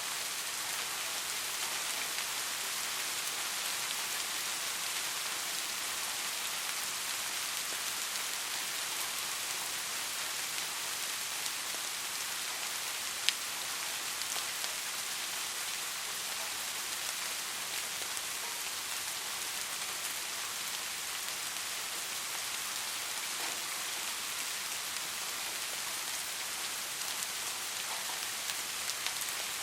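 Soft, steady rainfall, an even hiss of falling rain with fine scattered drop ticks. One sharper tick stands out about a third of the way in.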